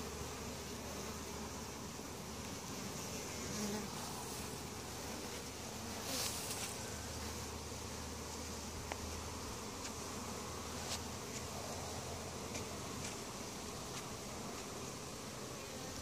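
A crowded honey bee colony buzzing around its opened hive: a steady, even hum, with a few faint clicks about 6 and 11 seconds in.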